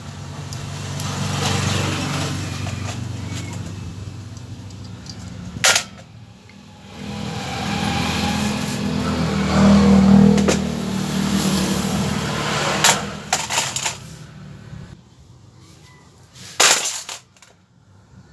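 Compressed air from a shop compressor blown through the disassembled motorcycle carburetor's jets and passages to clear dirt, in two long hissing blasts about five and seven seconds long. A few sharp clicks of metal parts come between and after the blasts.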